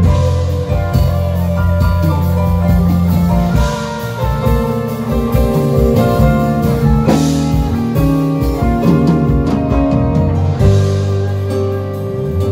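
A band rehearsing a slow jazz-gospel groove: a keyboard plays rich extended chords over a bass line, with electric guitar and drum hits.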